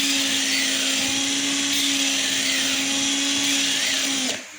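Battery-operated drill running steadily with a grinding-stone bit: a constant motor hum under a high grinding hiss. Near the end the motor stops and winds down quickly, dropping in pitch.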